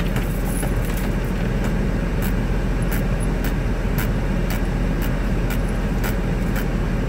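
Steady low rumble of a truck heard from inside the cab, with scattered light clicks.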